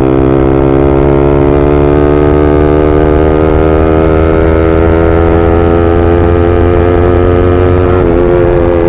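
Yamaha R15M's 155 cc single-cylinder engine through an SC Project full-system exhaust, pulling under acceleration with its note climbing steadily, then changing abruptly near the end, as at a gear change.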